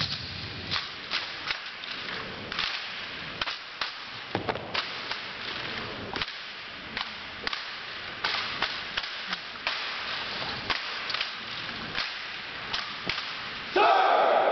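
Drill team rifle handling: a rapid, irregular string of sharp slaps and clacks as hands strike and catch the drill rifles during a rifle drill routine. Near the end, a loud burst of voices breaks in.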